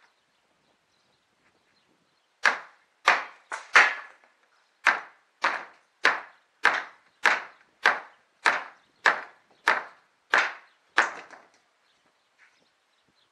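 Hand tool, likely a hammer, striking old wooden roof planks in a steady series of about fifteen blows a little over half a second apart, starting a couple of seconds in and stopping near the end.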